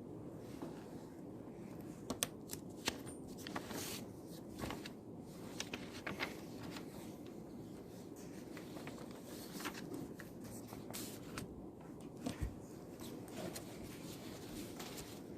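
Paper rustling and small clicks and taps from someone studying at a desk, scattered through the stretch over a steady low hum of the room.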